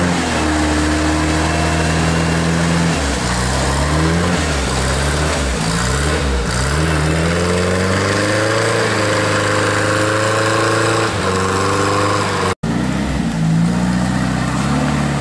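UAZ-469 off-roader's engine working hard as it pulls through deep mud, the revs climbing and dropping again and again. The sound breaks off for an instant near the end, then the engine runs on.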